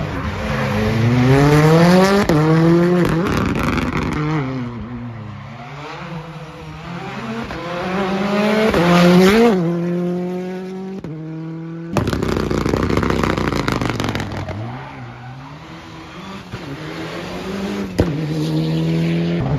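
Rally car engines revving hard, the pitch climbing steeply as they accelerate and dropping sharply between pulls, with some tyre squeal as a car drifts. The sound breaks off abruptly a few times where clips are cut together.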